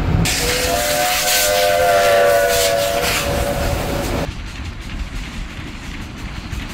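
Narrow-gauge steam locomotive's whistle sounding one long chord of several notes over loud steam hiss as the train passes close by. After about four seconds the sound drops to a quieter, steady rumble.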